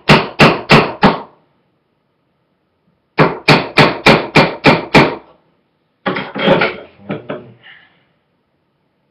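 A flathead screwdriver being pounded into the lid of a paint can, in two quick runs of sharp strikes at about four a second: five, then eight more after a short pause. A rougher clatter follows near the end as the lid is worked loose.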